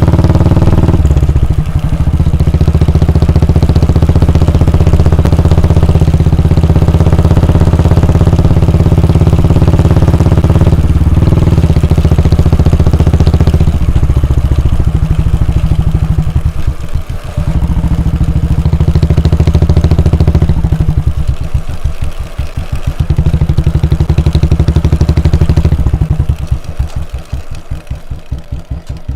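Royal Enfield Bullet 350's 349 cc air-cooled single-cylinder engine and exhaust under way, with the throttle eased off briefly several times. In the later part, and most of all near the end, the revs drop and the separate slow exhaust thumps of the single can be heard one by one.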